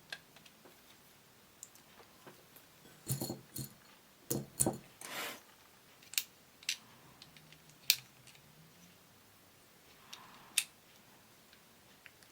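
Plastic Lego pieces clicking and rattling as they are handled and pressed onto a model: scattered sharp clicks, with a short burst of rattling clicks about three to five seconds in.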